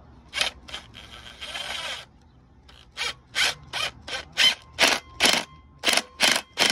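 Cordless impact wrench hammering on a puller's forcing screw in short trigger bursts, about ten of them in quick succession near the end after a longer run earlier, driving the puller to work the ABS tone ring off a truck's rear hub.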